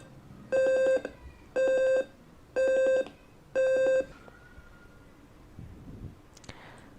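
Simulated piezo speaker of an Arduino fire alarm beeping: four half-second buzzing beeps about once a second, stopping about four seconds in. It is the alarm sounding because the temperature reading has passed its threshold.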